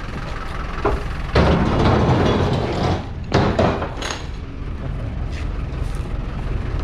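Scrap metal being handled onto a truck: a knock, a long scraping slide lasting about a second and a half, then several sharp metal clanks, over a truck engine idling.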